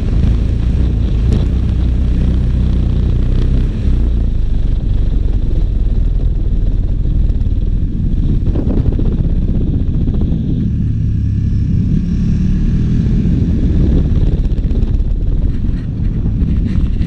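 KTM 1290 Super Duke R's V-twin engine running under way at road speed, heard from the rider's seat, the engine note easing off and picking up again partway through.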